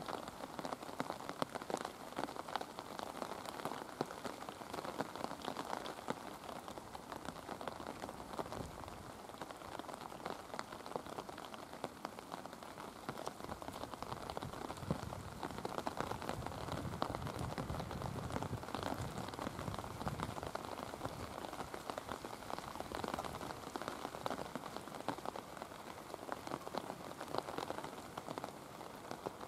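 Rain pattering close by, a dense, steady crackle of drops. A low rumble swells under it for several seconds in the middle.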